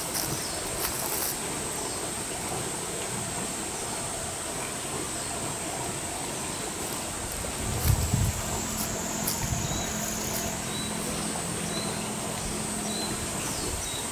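Outdoor summer ambience: insects buzzing steadily at a high pitch, with a few short high chirps repeating less than a second apart in the second half. A faint low hum comes in past the middle, and there is a low bump about eight seconds in.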